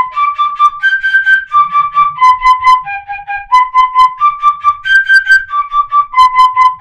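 Pífano, a Brazilian cane fife, playing a G–B–D–G arpeggio up and down twice in quick tongued triplets ('tacatá'), about three short notes on each pitch.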